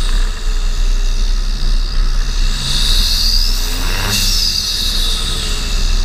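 Land Rover Defender TD5 five-cylinder turbodiesel, with a Storm Tuning Stage 3 remap and an open cone air filter, pulling under way. A high turbo whistle climbs to a peak near three seconds in, then falls away at about four seconds.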